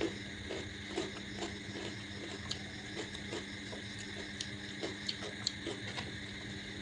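Close-miked chewing and mouth sounds of someone eating, irregular soft smacks and clicks, over a steady background hum.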